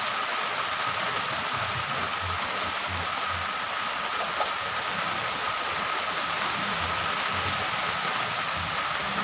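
Steady rain falling on a plastic greenhouse roof, an even hiss.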